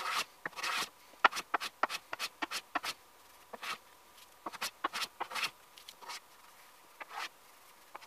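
Hand plane taking quick, short strokes along a hardwood edge cap glued onto plywood, trimming the overhang flush: a fast, irregular run of brief shaving swishes that thins out over the last couple of seconds.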